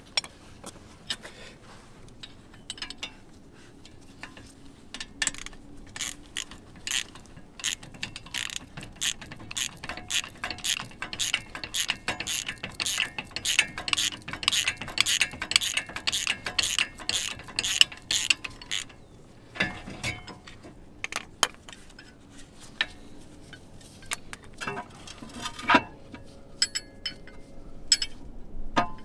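Socket ratchet clicking in quick strokes as the 13 mm brake caliper bolts are undone. The clicks come fastest and loudest in the middle stretch, then stop and give way to a few scattered metal clicks and clinks.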